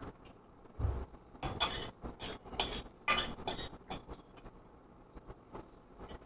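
A fork clinking and scraping against a ceramic bowl while eating from it: a run of sharp clinks between about one and a half and four seconds in, sparser and softer afterwards. A low thump comes about a second in.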